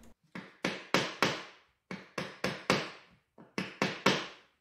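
Chisel cutting into sapele to square the corners of a hinge mortise: about a dozen short, sharp cuts in quick groups of three or four.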